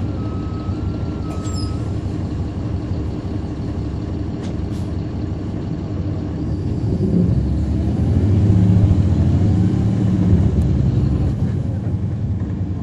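Caterpillar C13 ACERT diesel engine and ZF Ecomat automatic transmission of a NABI transit bus, heard from the rear seats. An electronic beeping tone stops about two seconds in. The engine then builds up about halfway through, loudest a few seconds later, before easing off.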